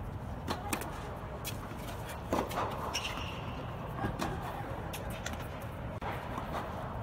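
Tennis ball struck by rackets and bouncing on an indoor hard court during a serve and short rally: sharp pops roughly once a second, with a brief squeak about three seconds in, over a steady low rumble.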